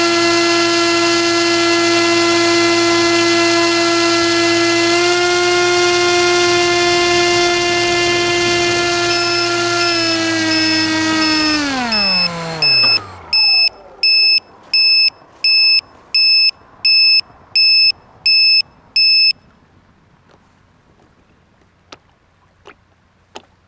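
RC airboat's motor and air propeller running at a steady pitch, rising slightly about five seconds in, then winding down and stopping about twelve seconds in. About ten regular high electronic beeps follow, roughly one and a half a second, then a few faint clicks near the end.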